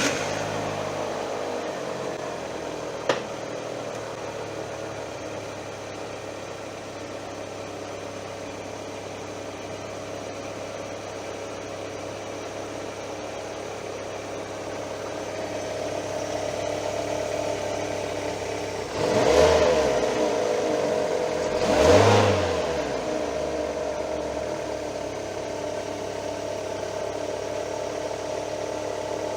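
Fiat Palio petrol engine running at idle just after starting, blipped twice about two-thirds of the way through, with a sharp click a few seconds in. The car has a knocking noise between the engine and gearbox that goes away when the clutch pedal is pressed, which the mechanic traces to springs.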